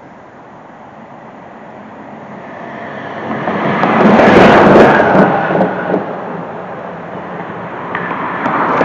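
A vehicle passing on the highway, swelling to its loudest about four to five seconds in and then fading, with another vehicle approaching near the end.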